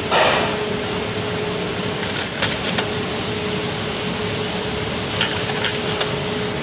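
Benchtop automatic taping machine for USB charger shells running, wrapping protective film: a steady motor hum with small groups of sharp mechanical clicks as it cycles. A louder rough, noisy burst comes just after the start.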